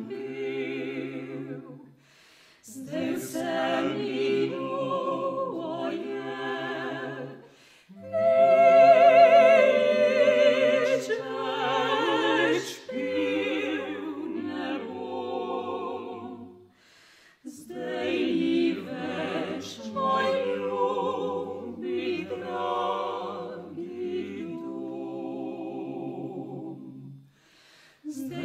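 A vocal quartet of three women and a man singing classical part-song a cappella, in long phrases broken by brief pauses, with a low male line beneath the women's voices.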